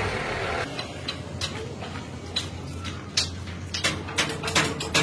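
Light metallic taps and clinks, scattered at first and coming about three a second near the end, over a steady low hum.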